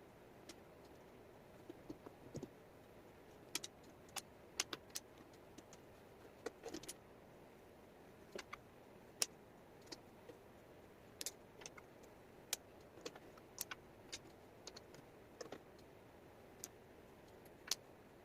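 Wooden jigsaw puzzle pieces clicking and tapping against each other and the tabletop in irregular light clicks over a faint steady hiss.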